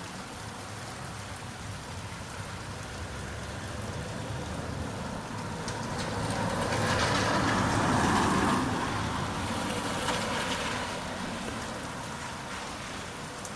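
Steady rain falling, while a vehicle passes on the wet road: a hiss of tyres on water that swells to its loudest about eight seconds in and then fades away.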